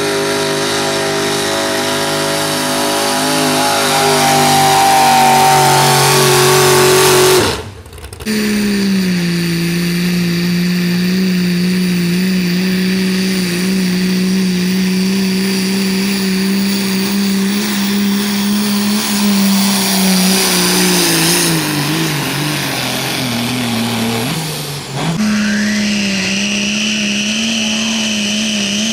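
Pulling-truck engines run at full throttle while dragging a weight sled, each as one steady, loud engine note. Twice the sound cuts abruptly from one truck to the next. From the first cut on, the trucks are 4wd Pro Mod diesels, and near the end of the middle pull the engine note drops lower.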